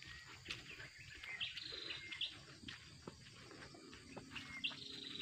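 Birds calling in short high chirps, a few held briefly before dropping in pitch, over a faint insect hum, with a few soft ticks.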